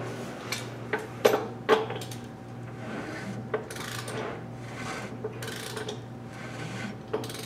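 Engine being turned over by hand with a wrench to sweep a dial indicator around the bell housing bore: scattered metal clicks and clinks, several in the first two seconds and a few more later, over a steady low hum.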